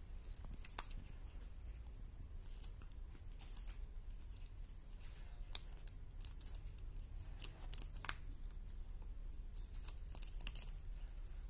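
A falcon tearing at raw quail on a leather glove: irregular small wet snaps, clicks and rips of flesh as the beak pulls pieces off, with sharper snaps about a second in, after five seconds and near eight seconds.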